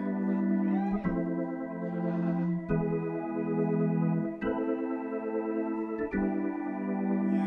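Keyboard playing sustained organ chords in a live dub band set, moving to a new chord about every second and a half to two seconds.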